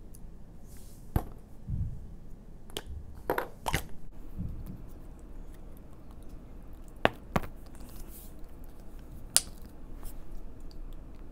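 A plastic slime bottle being handled while its slime is worked out of the neck onto a table. About half a dozen sharp plastic clicks and taps sound among soft handling noise.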